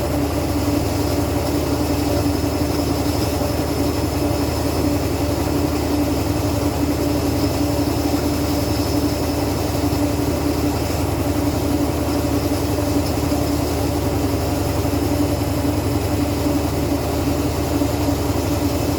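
Washing machine running with a steady, unchanging hum and a whine from its motor.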